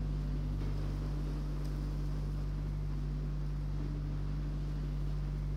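A steady low hum over a soft, even hiss, unchanging throughout.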